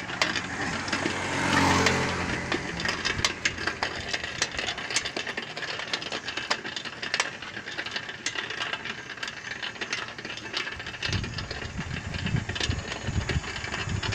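Ride on a two-wheeler along a paved road: steady road and wind noise full of irregular rattling clicks. A vehicle passes about two seconds in, and low wind buffeting hits the microphone in the last few seconds.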